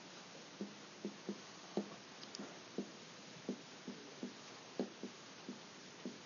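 Faint, irregular soft taps and knocks, roughly two a second, from writing on a classroom board, over a steady room hiss.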